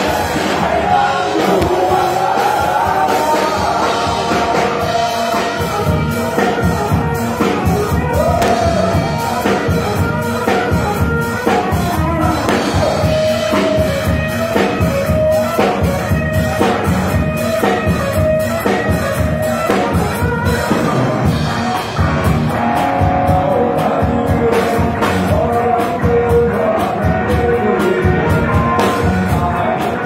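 A rock band playing live through PA speakers: a singer over electric guitars, bass guitar and a drum kit.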